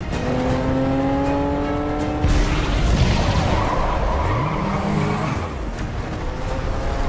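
A car engine revving hard under acceleration, its pitch rising slowly over the first two seconds, then a rush of tyre and road noise with the engine note stepping up and down about four to five seconds in.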